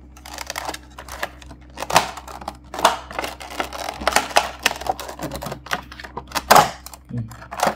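Clear plastic blister packaging being handled and pried open by hand: irregular crackles and clicks, the loudest about two seconds in and again about six and a half seconds in.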